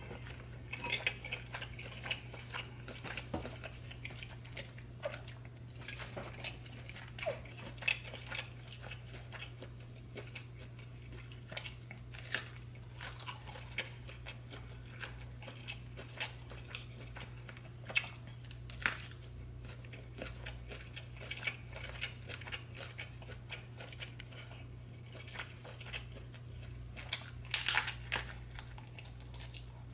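Close-miked eating of seafood: chewing and biting with scattered crunches and clicks, and a louder run of crunching near the end. A faint steady low hum runs underneath.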